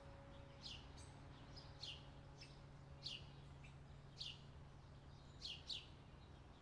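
Faint bird chirps: short, high, downward-sweeping calls repeating about once a second, with the held tones of background music dying away in the first half.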